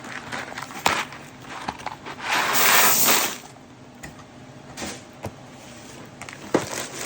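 Dry snack-mix ingredients poured into a container, one rush a little over a second long midway, with a few light clicks and knocks of handling around it.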